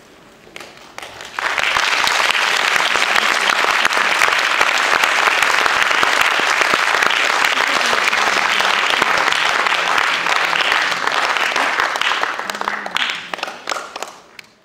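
Theatre audience applauding: a few scattered claps at first, then full applause from about a second and a half in, thinning out and fading away near the end.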